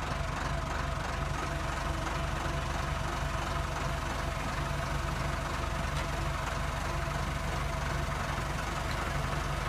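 Massey Ferguson 390 tractor's four-cylinder diesel engine running steadily and evenly at low speed while the tractor moves a heavy five-furrow plough that it only just manages.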